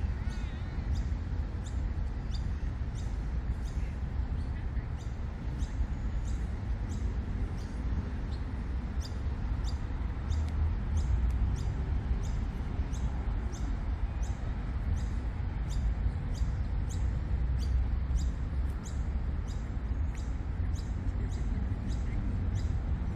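Small birds chirping, short high chirps repeating two or three times a second, over a steady low rumble.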